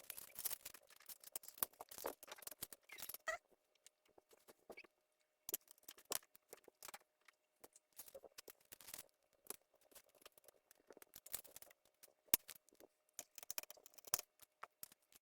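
Irregular small clicks, taps and scrapes of tools and parts being handled during the repair of a monitor's circuit board. A faint steady hum runs under them.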